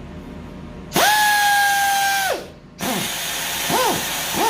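Harbor Freight Central Pneumatic air die grinder run on compressed air: a high whine starts suddenly about a second in, holds steady for about a second and a half, then winds down. It is followed by a string of short trigger blips, each whine rising and falling in pitch, over a hiss of air. After its rotor was turned down the spindle spins freely, but the grinder is judged to have no power.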